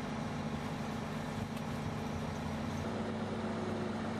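A steady engine drone from heavy vehicles or construction machinery running without change in pitch.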